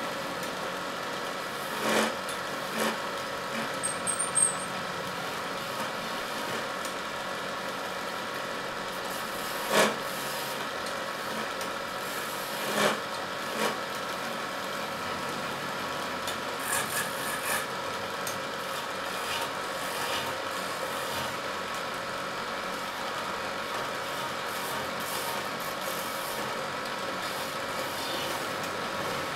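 Wood lathe running steadily while a hand-held turning chisel cuts a spinning wooden spindle, a continuous scraping as shavings peel off. Several sharp knocks or clicks stand out, the loudest about ten seconds in.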